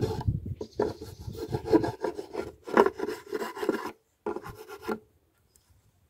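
Hand file scraping back and forth on the wooden edge of a birdhouse entrance hole, smoothing its sharp rim. The strokes come roughly one to two a second and stop about five seconds in.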